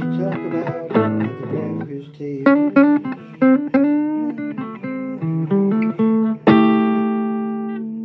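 Blues guitar played solo: a run of plucked notes, some bent up in pitch, then a final chord struck about six and a half seconds in that rings out and slowly fades.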